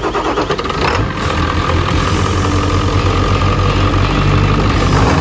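Ford 7.3 PowerStroke turbo-diesel V8 firing up after sitting, uneven at first and settling into a steady diesel idle about a second in.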